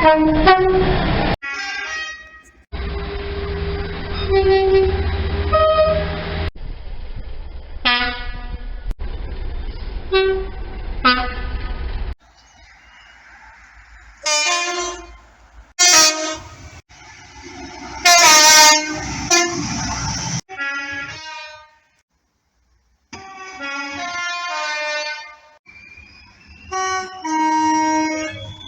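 Train horns, two-tone horns among them, sounding in a quick series of short recordings cut together: blasts of two alternating notes, some held and some brief, with a low noise beneath some of the clips.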